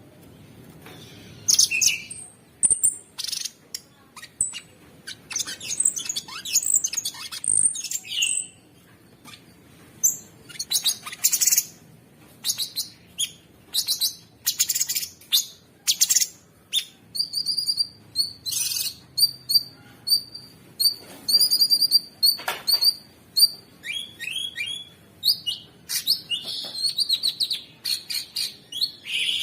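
Cucak sungkok singing a fast, varied song of short high chirps and trills, with a run of quickly repeated notes in the middle.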